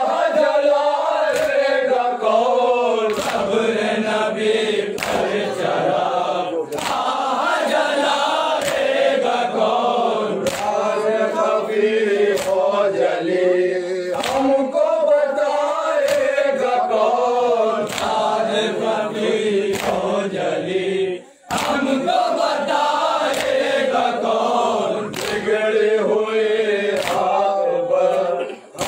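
Men chanting a noha (mourning lament) in chorus behind a lead reciter, with hand strikes on the chest (matam) landing together about every second and a half. The chanting breaks off briefly about three-quarters of the way through.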